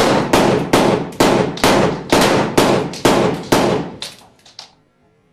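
Staged gunfire sound effect: about nine loud shots, a little over two a second, each ringing out briefly, then a few quicker, quieter shots that stop about four and a half seconds in.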